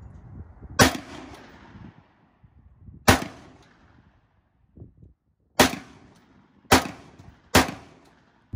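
Five shots from an ATI Bulldog semi-automatic bullpup 12-gauge shotgun. The first two come about two seconds apart and the last three in quicker succession, about a second apart, each with a short echoing tail.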